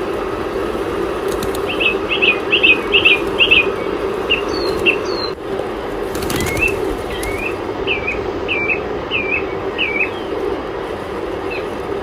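Birds calling in short, quick hooked chirps, two runs of about five notes each, with a burst of flapping wings about six seconds in. A steady low hum runs underneath.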